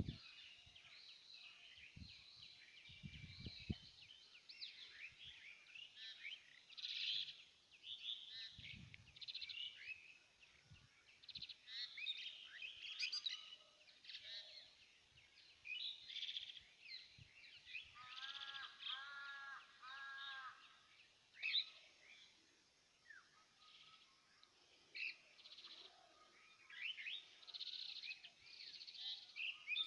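Faint mixed birdsong from many small birds, short chirps and trills overlapping throughout. About two-thirds of the way through, a lower call note repeats about six times in quick succession.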